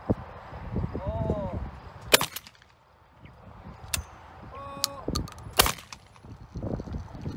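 Two shotgun shots at trap, about three and a half seconds apart. The first, about two seconds in, is the louder.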